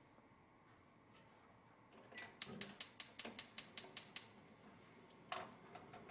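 Gas hob burner's spark igniter clicking rapidly, about a dozen sharp clicks over some two seconds as the burner is lit, followed by a single knock about five seconds in.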